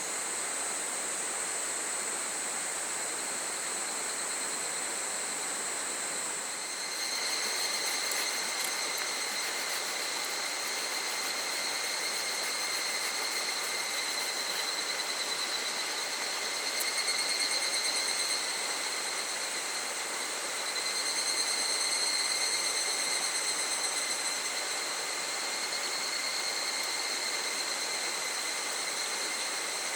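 Higurashi (evening cicadas) calling in a chorus: a high, steady ringing that thickens a few seconds in and swells twice further on. Under it runs the steady rush of a small stream.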